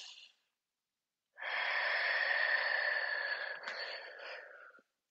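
A woman's long, deep exhale, an audible breath of about three seconds that tapers off toward the end. It is a deliberate slow breath taken in yoga practice.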